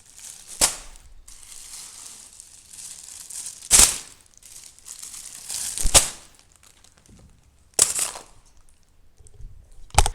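Plastic crinkling under handling, broken by five sharp snaps spaced about two seconds apart.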